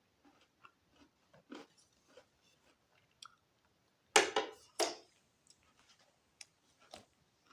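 A person chewing a piece of raw ginger topped with honey: small wet mouth clicks throughout, with two louder bites about four seconds in, half a second apart.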